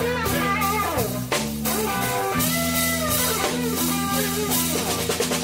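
Live rock band playing an instrumental passage: a lead guitar line with bending notes over held bass notes and a drum kit, the drums picking up into a run of quick even hits near the end.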